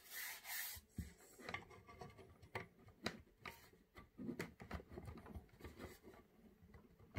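Faint, irregular clicks, taps and rubbing from a hand handling a mini PC and plugging its power cable into the back.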